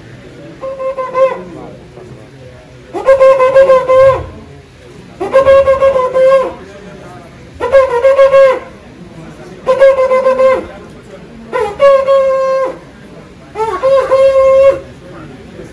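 Side-blown Akan horn sounding a series of about seven blasts, roughly two seconds apart. Each blast is held on one tone for about a second, bending at the start and end. The first blast is faint and the rest are loud.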